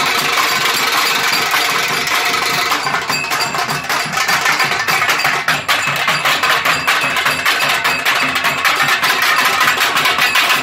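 Nashik dhol band drumming: several large barrel dhols beaten with sticks in a fast, dense, loud rhythm.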